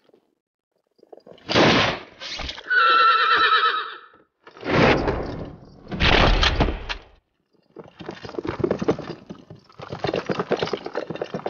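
A rifle shot, then a horse whinnying, followed by two heavy crashes as the horse and its rider go down. In the last few seconds several horses gallop, their hooves beating fast.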